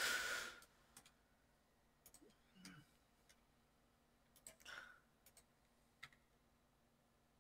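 Faint, scattered computer mouse clicks and keyboard key presses, about half a dozen separate clicks, with a breath near the start and a couple of softer rustles between them.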